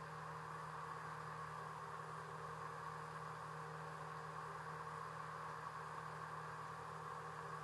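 A boat's engine running steadily, a constant low hum.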